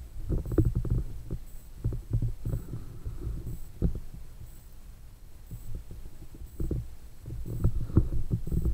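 Muffled low rumbling and irregular thumps of a camera held underwater in a water drum as it is moved around: water movement and handling knocks on the housing, in clusters and loudest near the end.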